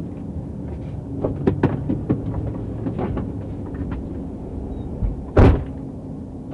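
Steady hum of the stopped patrol car heard from inside, with a few light clicks and knocks, then a single loud thump of a car door shutting about five and a half seconds in.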